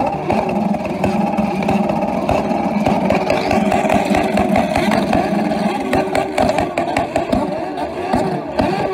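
Motorcycle engines with straight upswept exhausts held at the rev limiter, a steady high, stuttering drone. Sharp crackles and pops from the exhaust come thick in the second half, while the pipe shoots flame.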